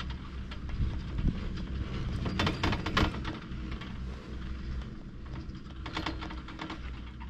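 Poma double chairlift's haul rope and sheave wheels clicking and clattering over a steady low rumble. The clatter comes in two dense runs, about two and a half seconds in and again about six seconds in.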